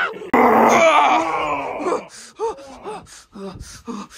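A person screams in a long loud cry, then gives a string of short gasps and grunts: the cries of someone being attacked and fighting back.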